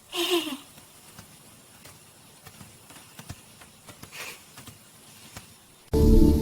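A short falling squeal, then faint scattered taps and ticks. Music comes in loudly near the end.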